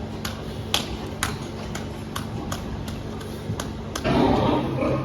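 Piglet hiccuping: a run of short, sharp clicking hiccups at irregular intervals, about two or three a second. A louder, fuller noise comes in near the end.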